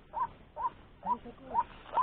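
White-breasted waterhen (ruak-ruak) calling: a short note near 1 kHz, rising then dropping, repeated steadily a little over twice a second, with a fainter lower call in the second half.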